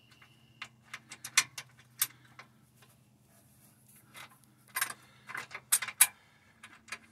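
Small metallic clicks and clinks as a steel hex bolt and its spacer are handled and threaded by hand into a car's suspension support-arm bracket, with a quicker, louder run of clinks about five seconds in. A faint steady low hum runs underneath.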